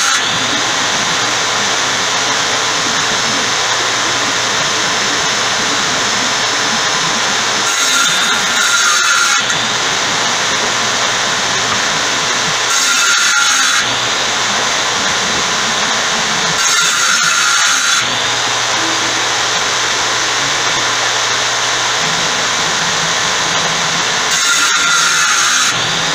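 Table saw running steadily while 19 mm white melamine panels are fed through it; four times the sound brightens for a second or so as the blade cuts through a panel.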